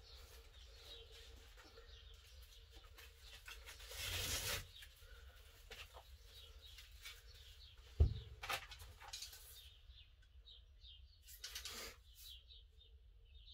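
Faint sounds of items being handled in a crate: a short rustling hiss about four seconds in, a sharp knock about eight seconds in, and a few more brief handling noises. Faint bird chirps sound in the background in the last few seconds.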